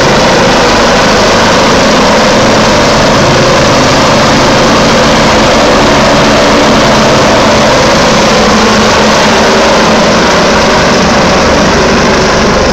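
Rescue helicopter hovering close by: loud, steady rotor and turbine engine noise.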